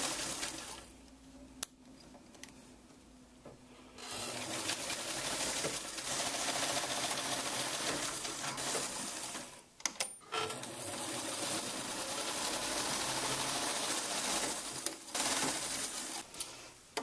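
Morse electric sewing machine running a straight stitch in spurts: it stops about a second in, starts again about four seconds in, pauses briefly with a few clicks near the middle, then runs on until just before the end.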